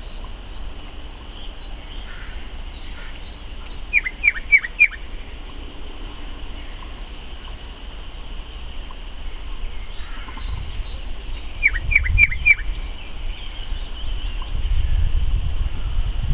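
Nightingale singing: a phrase of four or five quick, repeated downward-sweeping notes about four seconds in, and a second such phrase near twelve seconds, with faint higher notes between them. A low rumble rises toward the end.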